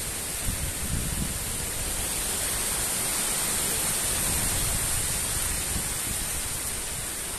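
Strong storm wind rushing through tree canopies, with gusts buffeting the microphone in a steady low rumble under a constant hiss.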